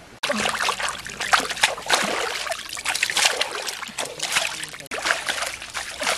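Water splashing and sloshing in irregular bursts as a large fish is rubbed and rinsed by hand in a shallow stream.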